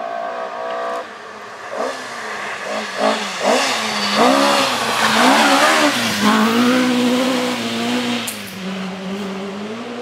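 Rally car driven hard on a gravel stage, its engine rising and dropping in pitch with quick revs and gear changes as it approaches. It is loudest about five seconds in, with a rush of tyre and gravel noise as it passes, then the engine note fades away.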